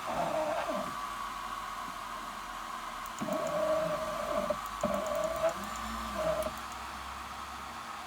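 Stepper motors of a DIY CNC router driving the axes while homing: a steady whine in several short runs that start and stop, the longest about three seconds in, over a constant faint hum.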